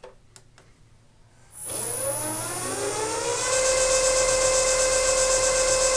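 A few light clicks, then the South Bend milling machine's spindle motor starts about a second and a half in. Its whine rises in pitch for about two seconds as the spindle spins up, then holds steady at full speed.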